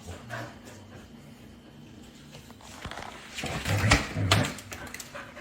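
A dog making a few short vocal sounds after a quiet stretch, about three and a half to four and a half seconds in.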